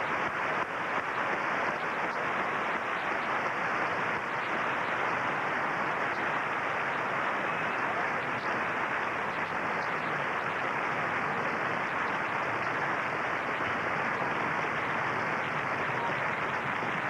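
Large tennis crowd applauding steadily.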